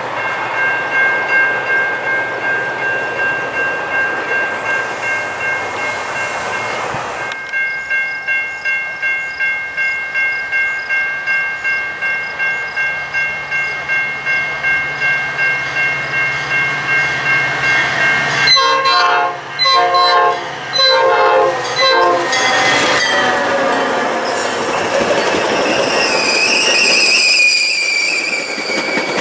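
Grade-crossing bell ringing steadily, then a Metra commuter train's horn sounds several blasts as it reaches the crossing, about two-thirds of the way in. The train then passes close by with wheel and rail noise and a wavering wheel-flange squeal near the end.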